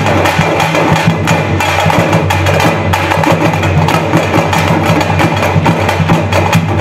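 Thappu (parai) frame drums played together by a troupe of drummers: sticks beat a fast, dense, unbroken Thappattam rhythm.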